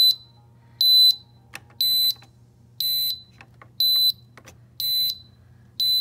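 Circuit-board buzzer in a HomeLabs dehumidifier sounding its water-tank-full alarm: a string of short, high, identical beeps about one a second, over a faint low hum.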